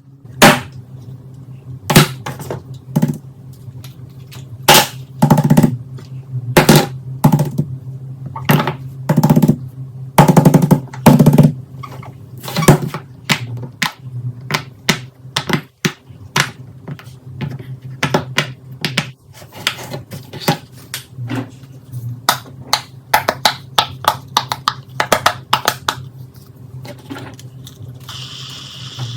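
Fidget toys being handled: an irregular run of sharp clicks, taps and knocks, some in quick clusters, over a steady low hum. A short hiss comes near the end.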